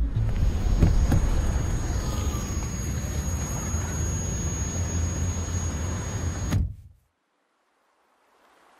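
A steady, noisy rumble like a vehicle in motion, with a faint high whine over it, that cuts off suddenly about two-thirds of the way in, leaving silence.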